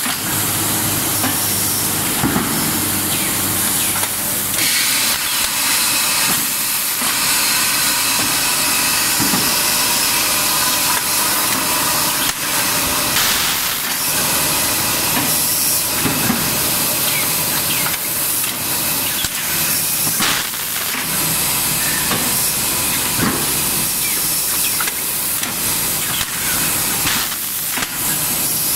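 Automatic pad printing machine for PVC balls running: a steady hiss of compressed air with repeated short clacks from its pneumatic mechanism.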